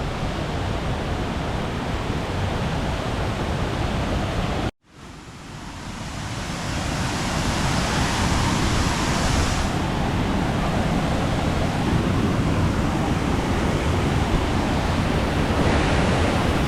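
Waterfall: a steady rush of falling water. It cuts out abruptly about five seconds in and fades back up over the next few seconds.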